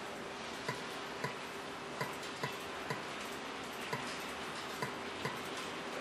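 Handheld remote control's buttons clicking as they are pressed, about eight short sharp clicks at uneven intervals, over a faint steady hiss and hum.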